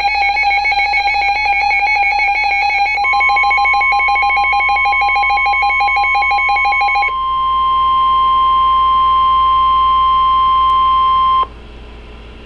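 Emergency Alert System attention tones. A harsh warbling alarm tone is joined about three seconds in by a steady single-pitch tone of the kind used by NOAA Weather Radio. The warble stops about halfway through, and the steady tone carries on alone until it cuts off abruptly near the end, leaving a low hum.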